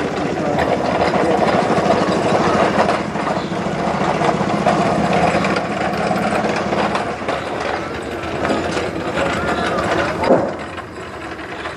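Truck engine idling with a steady low hum that drops away about seven seconds in, over a background of voices. A single sharp knock comes near the end.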